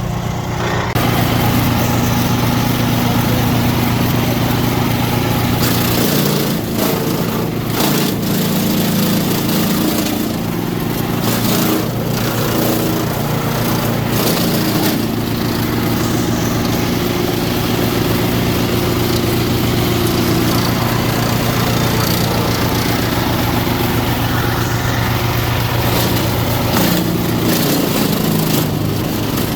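DR PRO XL575 self-feeding wood chipper running steadily at speed, with repeated harsh surges over the engine note from about six seconds in as limbs are fed through and chipped.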